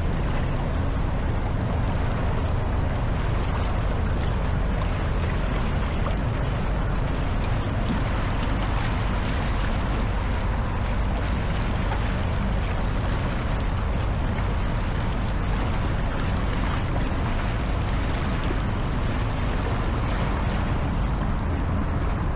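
Steady outdoor ambience of a city river embankment: a continuous low rumble with an even wash of noise over it and no distinct events.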